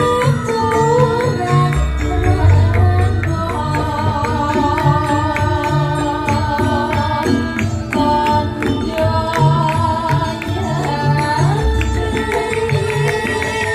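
A Javanese langgam song played by a live band with drums keeping a steady beat, a melody line winding over it, and a wavering sung line.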